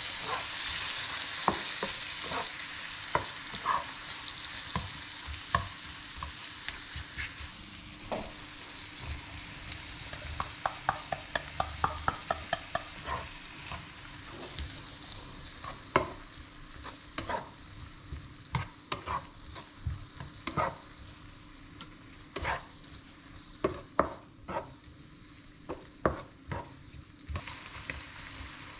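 Mushrooms and corn frying in butter in a nonstick frying pan, with a spatula stirring and tapping against the pan. The sizzle is strongest at first and dies down about a quarter of the way through, while scattered spatula taps continue, including a quick run of taps about ten to thirteen seconds in.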